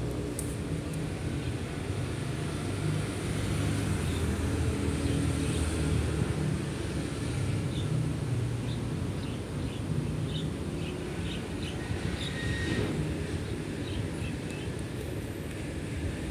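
Background noise of a busy indoor shopping hall: a steady low rumble, with a run of light ticks in the second half.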